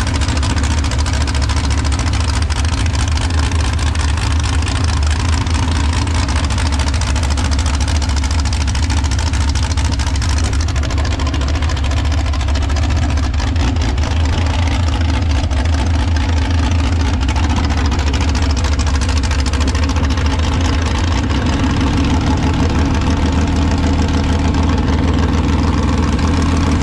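Mini rod pulling tractor engine running steadily at idle, with a deep low note throughout and a slight change in its tone about twenty seconds in. It is the engine the team is troubleshooting for a misfire.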